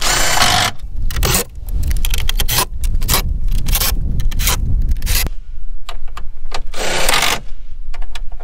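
20V cordless driver running in short bursts as it zips down bolts, one burst right at the start and another about 7 seconds in, with metallic clicking and rattling of the socket and bolts in between.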